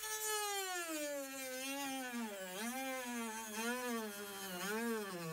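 Dremel rotary tool with a cutoff wheel cutting into a plastic trim panel. Its motor whine falls in pitch over the first two seconds as the wheel bites, then wavers up and down with the cutting load.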